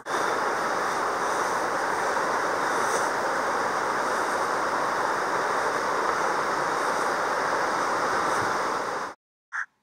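Steady rush of a mountain stream's flowing water, cutting off suddenly about nine seconds in.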